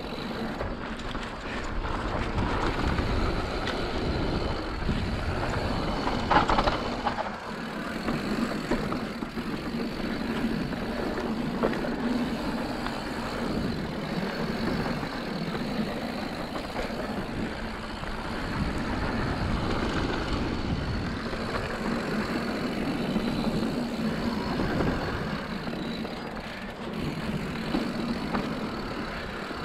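Mountain bike descending dirt singletrack: Maxxis Assegai front and DHR II rear tyres rolling over hardpack with a steady rushing noise, and a sharp knock from the bike over a bump about six seconds in.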